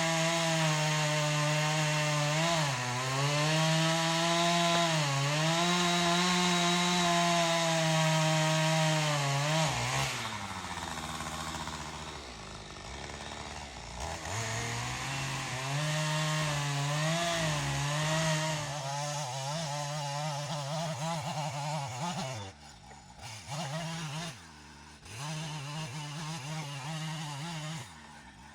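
Chainsaw running at high revs, its pitch dipping briefly twice as it bogs under load. About ten seconds in it drops toward idle, revs up again briefly, then runs more quietly, with short drop-outs near the end.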